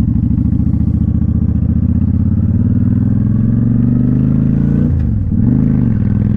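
Honda Shadow Spirit 750's V-twin engine under way, its revs climbing as the bike accelerates. About five seconds in the engine note drops sharply and climbs again, as with a gear change.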